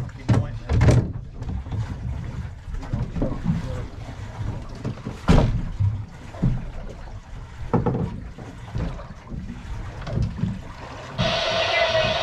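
Sounds aboard a small boat at sea: wind on the microphone and water against the hull, with irregular knocks and thumps of gear and footing as the angler works a tangled line at the stern. Near the end a steady hiss with a held tone sets in.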